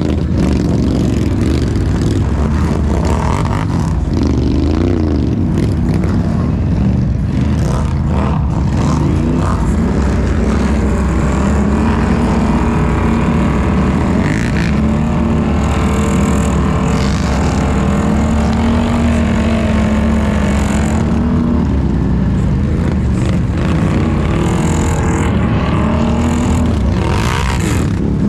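ATV engine running with its pitch rising and falling as the throttle is worked, over a heavy low rumble.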